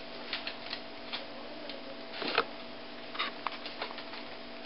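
Kitchen knife cutting through a crispy-topped brownie in its baking pan: scattered small clicks and crackles, a sharper one about halfway through.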